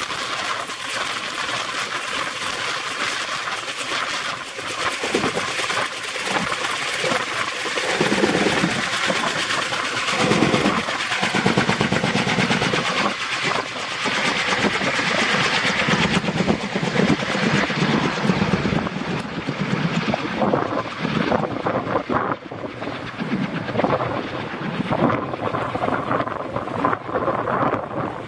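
Kaman K-MAX K-1200 helicopter taking off and flying away: the rapid, rhythmic beat of its twin intermeshing rotors over the steady noise of its turboshaft engine. The high, hissing part of the sound fades in the second half as it climbs away.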